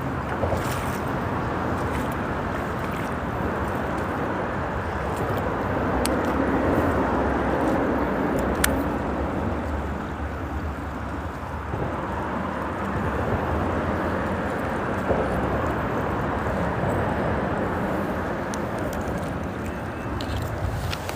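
Steady rush of freeway traffic on the bridge overhead blended with the running water of a small stream, swelling gently now and then, with a few faint ticks.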